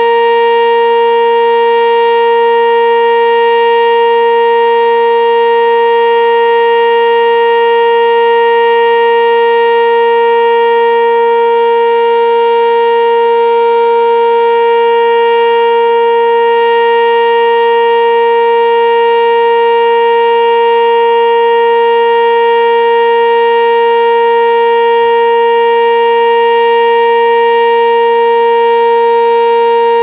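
Sentry 10V2T dual-tone outdoor warning siren sounding its steady alert signal at full speed: a loud, unchanging chord of tones with no rise or fall in pitch.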